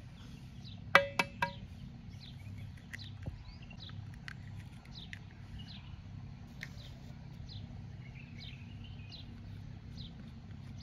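An egg tapped three times in quick succession against the rim of a metal mixing bowl, each tap making the bowl ring briefly. Small birds chirp throughout over a steady low background hum.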